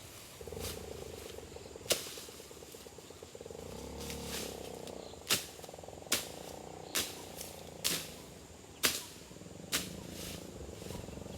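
An animal's buzzing, rapidly pulsed call for the first few seconds, over a string of sharp knocks or snaps coming about once a second.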